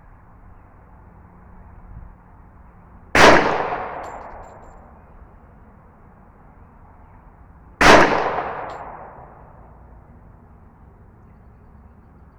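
Two shots from a Glock 21 .45 ACP pistol, about four and a half seconds apart, each a sharp crack that dies away over about a second.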